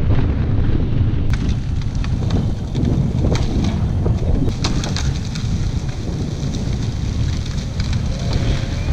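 Wind buffeting the microphone in a loud low rumble, with a run of sharp cracks about three to five seconds in.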